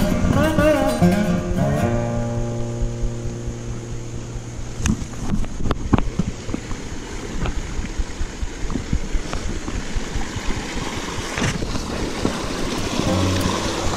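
Acoustic guitar music for the first couple of seconds, returning near the end. In between, the steady rush of a rocky creek with wind on the microphone and a few sharp knocks of footsteps on stone about five to six seconds in.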